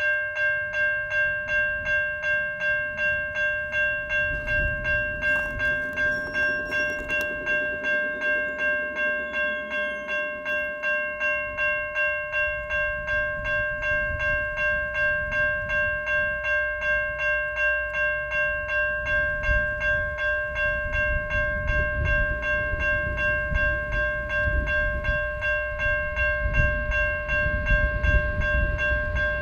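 A train rumbling by at the junction, growing heavier in the last third, under a bell-like ringing that pulses about twice a second and never stops.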